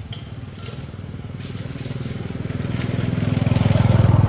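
A small engine running close by, passing, its low, even pulsing growing steadily louder to a peak near the end.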